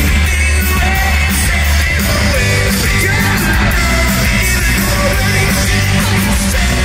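Indie rock band playing live through a concert PA: electric guitars, bass and drums, loud and steady, with singing over them.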